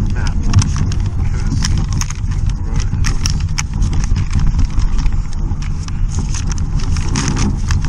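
A paper map crinkling and rustling in gloved hands, with many short sharp crackles, over a steady low rumble from the motorcycle.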